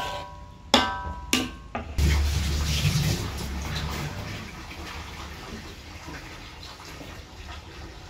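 A metal ladle knocks against the soup pot three times in the first two seconds, each with a short ring. Then the tom yum broth sloshes and bubbles, fading off.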